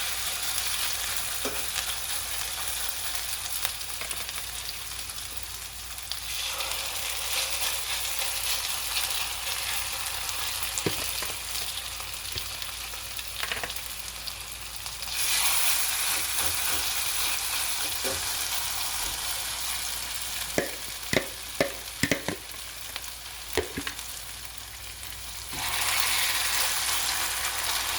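Potato pancakes frying in a little olive oil in a pot: a steady sizzle that gets louder about halfway through and again near the end. A few sharp knocks come about two-thirds of the way in.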